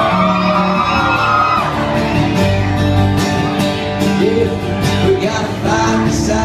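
Live country band playing between sung lines, with guitars and drums over the bass, and a sung note gliding down in the first second or so.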